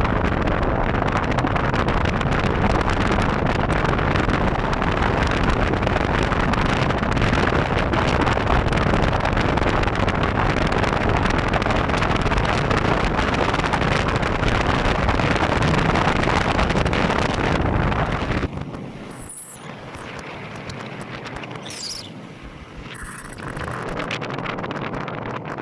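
Wind buffeting the microphone over the rumble of a moving vehicle. Near the end it drops suddenly to a much quieter rumble.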